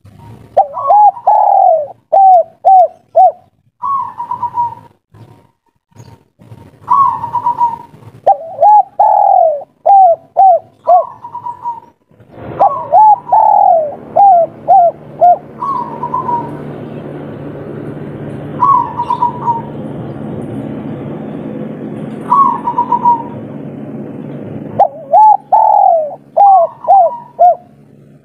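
Spotted dove (derkuku) calling again and again in the 'kuk 3' style: each phrase starts on a higher coo and runs into a string of quicker, lower coos. A steady low hum sits under the calls from about twelve seconds in until about twenty-five seconds in.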